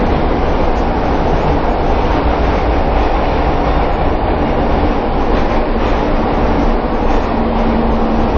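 Pyongyang Metro train running through the tunnel, heard from inside the carriage: a steady, loud rumble of wheels and running gear. A faint steady tone joins about two seconds in, and a lower one near the end.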